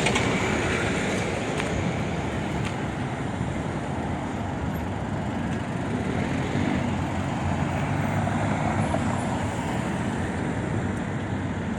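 Steady road traffic on a busy city avenue: a continuous rumble of engines and tyres with no single vehicle standing out.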